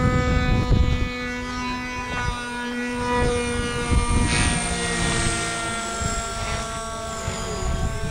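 Radio-controlled T-Rex helicopter in fast flight, its rotor and motor giving a steady whine that drifts slightly up and down in pitch as it passes.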